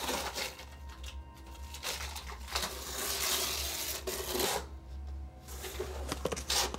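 Cardboard box being opened by hand: packaging rustling and scraping in irregular spells with small clicks, the longest spell about halfway through, over a low, steady music drone.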